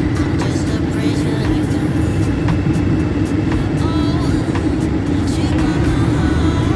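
Semi-truck engine and road noise while driving: a steady low drone that holds level throughout.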